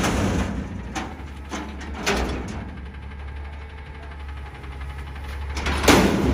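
Peterbilt 320 front-loader garbage truck's diesel engine running while its Amrep hydraulic arms lower an emptied steel dumpster from overhead. Metal knocks from the container and forks about one and two seconds in, and a louder metal clank near the end as the dumpster comes down.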